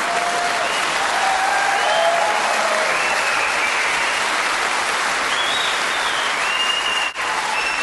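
A live stand-up audience applauding steadily after a punchline, with a few cheers rising over the clapping.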